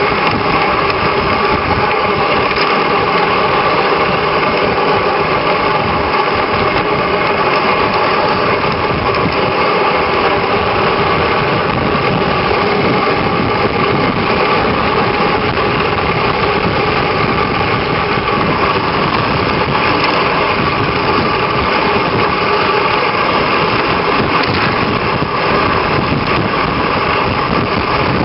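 Steady rushing noise of a dog sled running over packed snow, heard from the sled, with a faint constant hum.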